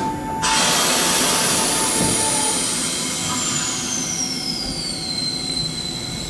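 Randen tram car 624 pulling out of the station. A loud burst of air hiss comes about half a second in. A high whine then glides steadily down in pitch as the car gets under way.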